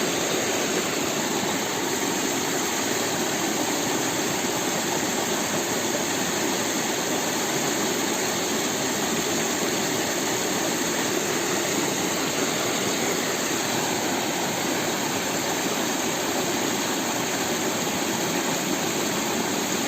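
Steady rushing of flowing river water, an even noise with no breaks or changes.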